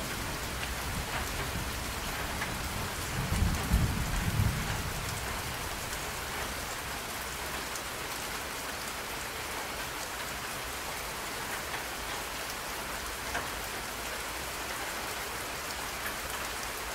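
Steady hiss like rain, with faint scattered ticks, and a low rumble that swells and fades about three to five seconds in.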